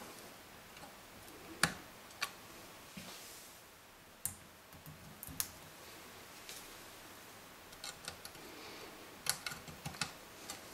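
Sharp plastic clicks and light handling noise as stepper-motor cable connectors are pushed into the sockets on the CNC 3018 router's control board. There is a loud click about a second and a half in, a few more scattered through the middle, and a quick run of clicks near the end.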